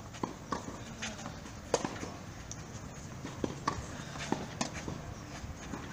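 Tennis ball knocks on a clay court, a dozen or so sharp hits of racket on ball and ball on clay at uneven intervals, the loudest a little under two seconds in.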